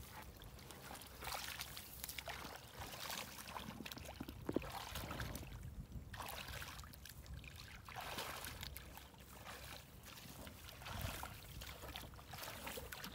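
Shallow muddy water sloshing and splashing in irregular bursts as a person gropes through it by hand and wades along it.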